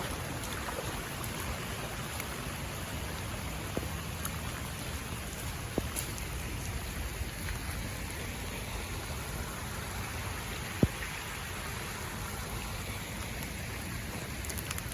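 Steady rain falling, a constant hiss of rain and runoff, with a few sharp ticks, the loudest about eleven seconds in.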